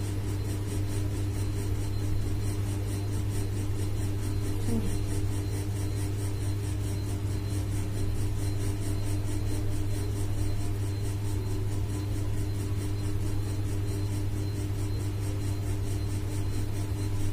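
A steady, even low hum with no change.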